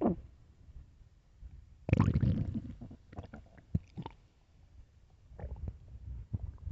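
A person's stomach growling: a short falling gurgle at the start, a longer low rumble about two seconds in, then scattered short gurgles with quiet gaps between.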